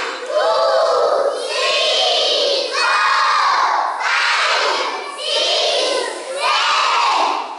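A group of young children shouting together in short, loud phrases, about one a second, in a steady rhythm.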